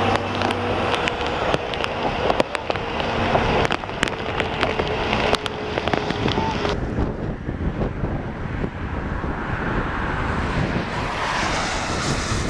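Storm wind buffeting a moving chase vehicle, with many sharp ticks of small objects striking it. About seven seconds in, the high hiss drops away suddenly, then swells again near the end.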